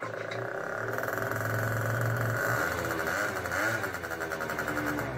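Small scooter engine running, with a man's voice over it.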